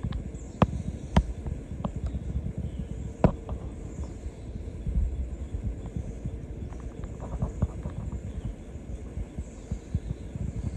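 Low rumble and soft thumping of handling noise on a hand-held camera's microphone as it pans around, with a few sharp clicks in the first three seconds.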